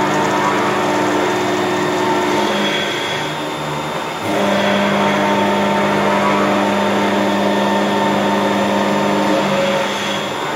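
CME BF04 milling machine face-milling a flat surface along its X axis: a steady hum of the spindle and cutter cutting metal. It eases off briefly about three to four seconds in, then comes back at full level.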